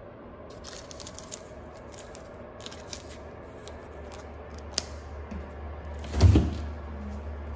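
Paper seal strip crinkling and tearing as it is peeled off a minibar fridge door, a sharp click, then a loud low thump as the fridge door is pulled open.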